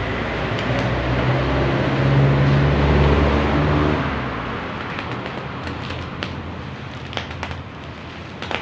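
A motor vehicle's engine rumbles, swelling to its loudest two to three seconds in and fading away by about four seconds, like a vehicle going past. Light clicks and taps follow in the second half.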